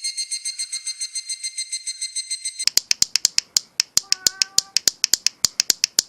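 A semi-kachi, a cheap Japanese candy-store cicada clicker toy, clicking fast and evenly. It gives a buzzy, ringing chirr for the first few seconds, then switches to sharper, louder clicks about six a second, with a short squeak twice.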